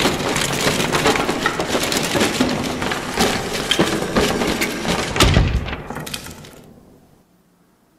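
Wooden planks tumbling onto a pile in a dense, continuous clatter of knocks, with a heavier thud about five seconds in. The clatter thins out and stops about seven seconds in.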